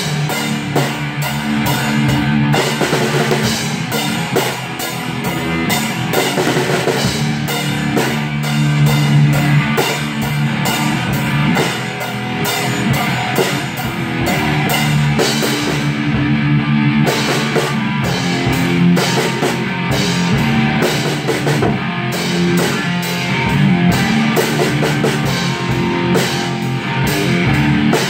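Rock music with a drum kit playing a steady beat over guitar.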